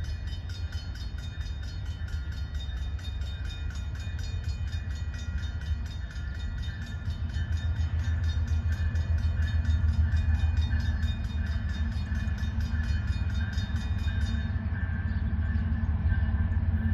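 Diesel locomotive of a slowly approaching freight train: a deep, steady engine rumble that grows louder about halfway through as it draws nearer.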